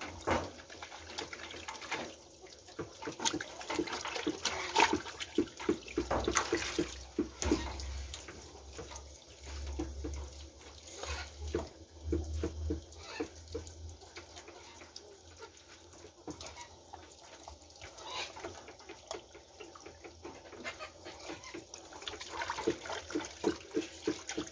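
Tap water running into a metal sink while a gutted armadillo carcass is rinsed under it by hand, with irregular splashes and knocks as it is turned and scrubbed.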